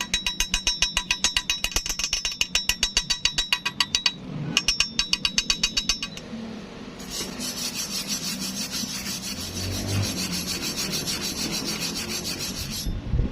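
Fast, even scraping strokes on metal, about eight a second, with the steel ringing, in two runs. About seven seconds in they give way to a steady high hiss that stops just before the end.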